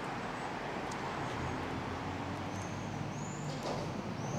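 Quiet, steady background noise with three faint, short, high chirps in the second half.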